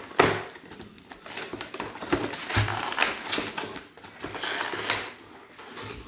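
Packaging of a Pokémon card box being torn and pulled open by hand: irregular crackles, clicks and rustles, the loudest about a quarter of a second in.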